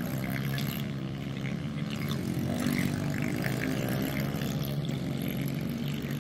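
Several 110cc pit bike engines running together, revving up and down in pitch as the bikes race.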